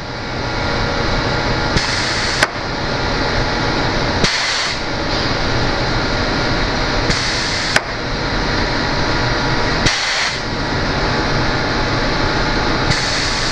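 Air-cylinder-driven sliding mill table banging into a metal hard stop with no shock absorber on the reverse stroke: two sharp metallic bangs about five seconds apart. Short hisses of exhausting air come every two to three seconds over a steady machine hum.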